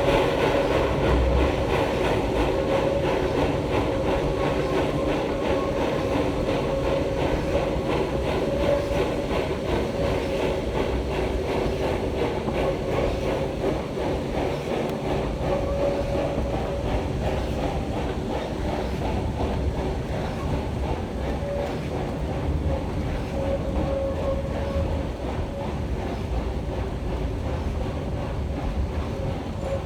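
Train of the Black Hills Central Railroad's 1880 Train rolling along the track, a steady rumble and rattle of wheels on rail with fine clicking throughout.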